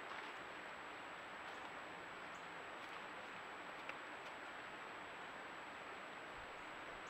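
A trail camera's microphone picks up a low, steady hiss with a thin, constant high whine. A few faint ticks and soft rustles of white-tailed deer in frosted dry leaves sound close by, with a couple of soft low thumps near the end.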